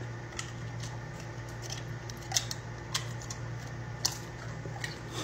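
Doberman biting and chewing a crisp slice of food: a run of short sharp crunches, about two a second, over a low steady room hum.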